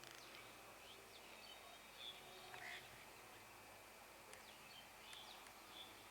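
Faint bird chirps and short calls, scattered and irregular, over a low background hiss.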